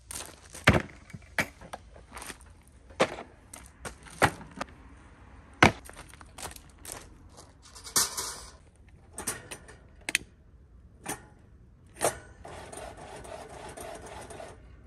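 Sharp, irregular knocks and clatter as camping gear is handled and set down on gravel, with the crunch of footsteps on the stones. A steady rustle near the end.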